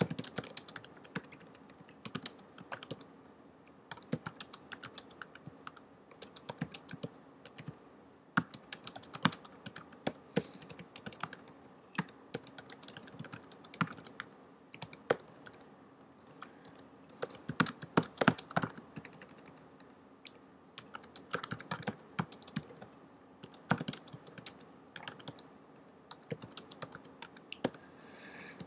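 Typing on a computer keyboard: quick runs of key clicks in irregular bursts, broken by short pauses, as a couple of lines of text are typed.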